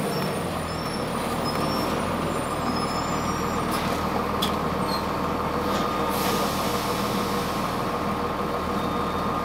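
Cabin noise of a 2002 Blue Bird CS transit bus, its Cummins ISC diesel and Allison automatic drivetrain running steadily, with a steady high whine. A few sharp rattles come midway.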